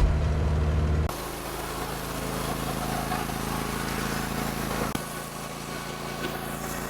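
An engine running steadily, with a low hum; about a second in it drops to a quieter, lower-powered run and keeps going.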